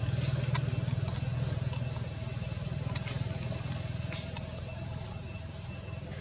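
A vehicle engine running at a low, steady pitch and slowly fading away, with a few faint clicks on top.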